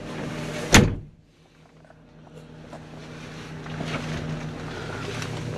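Claas Torion 1511P loading shovel's engine running, with one loud thump just under a second in, after which the sound drops away abruptly; the engine noise then builds up steadily again.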